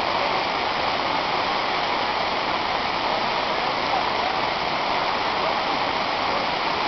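Waterfall: water rushing over rock, a steady even rush with no breaks.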